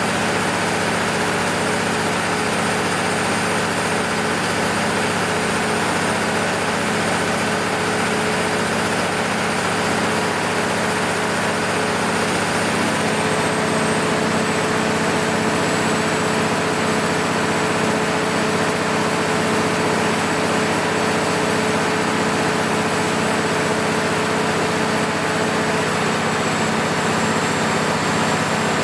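MEP-006A military generator's freshly overhauled six-cylinder diesel engine running steadily on load test. Its tone shifts slightly about thirteen seconds in.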